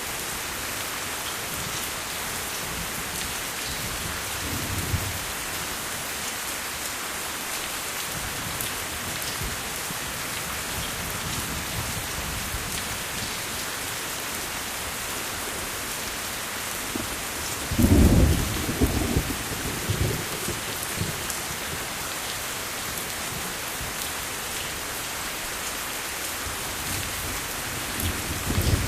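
Steady rainfall hissing without a break, with low rumbles of thunder: a small one a few seconds in, a louder one lasting a few seconds about two-thirds of the way through, and another starting near the end.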